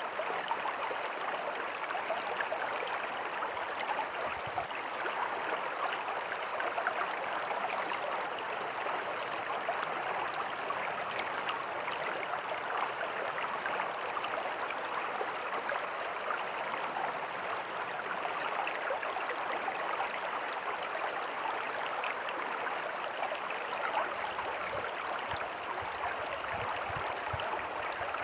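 Small creek running over rocks with a tiny waterfall: a steady splashing and babbling, even throughout.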